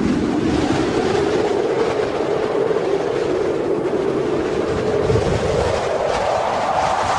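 Strong wind howling in gusts, a rushing hiss with a moaning tone that rises in pitch at the start, holds, and rises again near the end.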